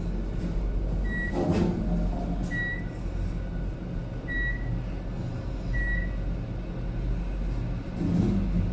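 Elevator car travelling, with a steady low hum and short high beeps repeating about every one and a half seconds.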